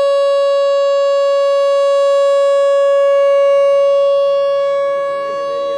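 Whelen WPS-4004 electronic outdoor warning siren sounding a steady, unwavering tone, very loud at close range. It grows a little louder toward the middle and eases off near the end as the rotating speaker array turns.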